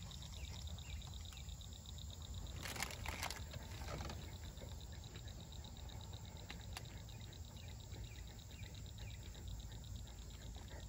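Faint summer outdoor ambience: insects trilling in a steady, rapidly pulsing buzz over a low rumble, with a short burst of noise about three seconds in.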